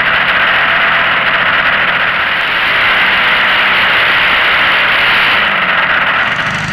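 RC model aircraft's engine running with its propeller spinning right beside the onboard camera, as the model taxis on grass. A steady, loud rush of propeller noise and prop wash dominates the engine note.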